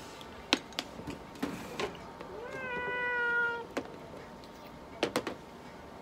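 A cat gives one long meow about halfway through, rising in pitch at the start and then easing slightly downward. Several sharp clicks come before and after it, the loudest a quick run of three near the end.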